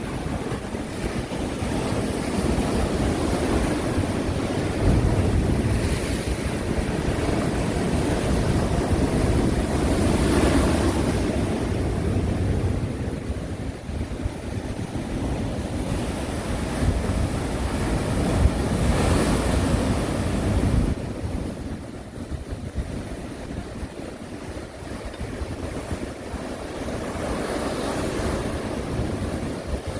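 Sea waves breaking and washing on the shore, swelling and falling back every several seconds. A low wind rumble on the microphone runs under the surf and drops away suddenly about two-thirds of the way through.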